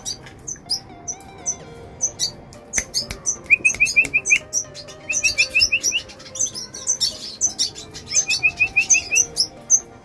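Caged red siskins chirping: a busy stream of short, high chirps, with three quick runs of lower repeated notes, about a second each, near the middle and toward the end.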